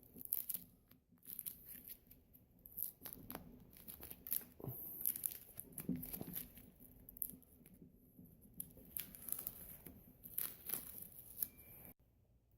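Tape being peeled off the freshly painted door of an old combination safe in a series of short, irregular rips, with some crinkling of the used tape.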